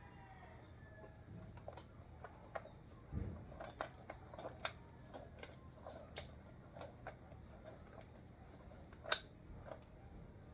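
Faint scattered clicks and knocks of rifle parts being handled and stowed into the AR-7's hollow plastic buttstock, with a dull thump about three seconds in and a sharp click about nine seconds in.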